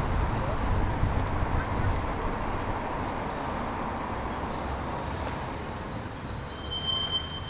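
Wind and rolling road noise while riding. About six seconds in, a loud, high brake squeal sets in, several shrill steady pitches at once.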